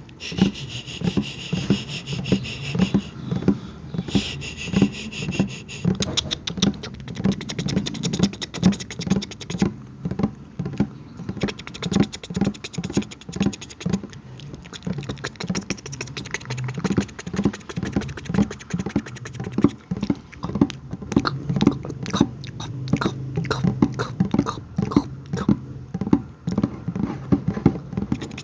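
ASMR mouth sounds close to the microphone: a quick, irregular run of wet clicks and pops over a low steady hum.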